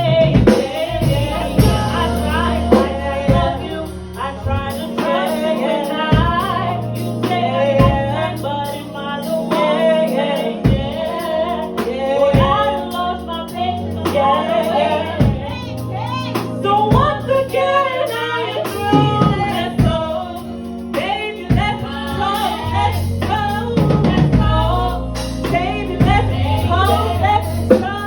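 Live band music: women singing a song over drum kit and bass.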